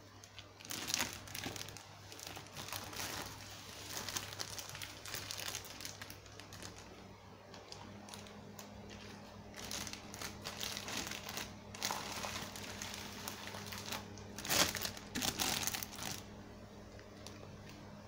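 Clear plastic wrapping around a new vacuum cleaner crinkling and rustling in irregular bursts as the wrapped unit is handled and moved, loudest between about fourteen and sixteen seconds in.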